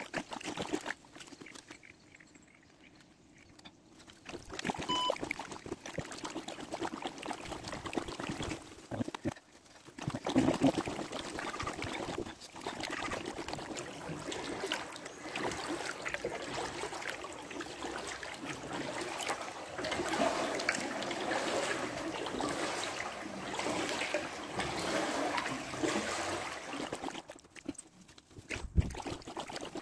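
Kayak paddle strokes in calm canal water: blades dipping and pulling, water splashing and dripping off them, with a few sharper knocks.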